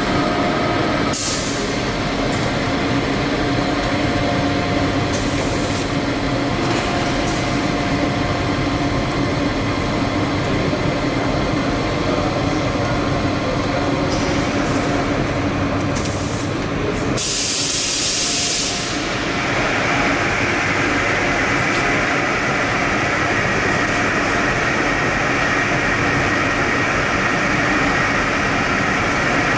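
Steady hum of juice-processing plant machinery around a bag-in-box filler. Four short hisses cut through it, the longest lasting about a second and a half around the middle.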